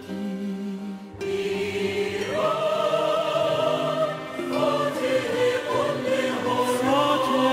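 Persian choral song: a choir holding long sung notes, coming in after a brief dip at the start.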